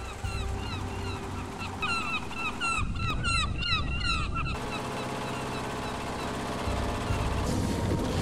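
A flock of seabirds calling, many short, clipped calls overlapping one another. About four and a half seconds in the calls stop and a steady low hum with several held tones takes over.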